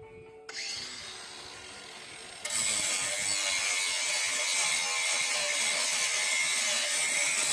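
Ryobi ONE+ 18-volt cordless angle grinder working metal. It runs at moderate level at first, then from about two and a half seconds in gives a loud, steady, hissing grind that cuts off sharply at the end.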